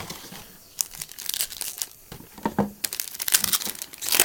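A baseball-card pack wrapper being torn open and crinkled by hand, in irregular crackly bursts that are loudest near the end.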